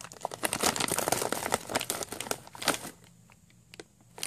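Clear plastic packaging crinkling as a hand handles the foam squishy toy sealed inside it: a dense rustle for about three seconds, then a few scattered crackles and a short rustle again at the end.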